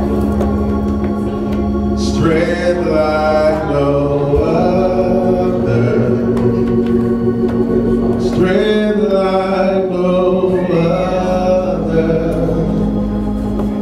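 Gospel music: an organ holding long sustained chords while voices sing over it.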